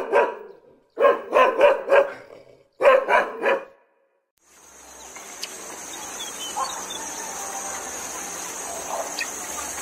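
Dog barking in quick runs of several barks, stopping about three and a half seconds in. About a second later, a steady hiss with a thin high whine takes over.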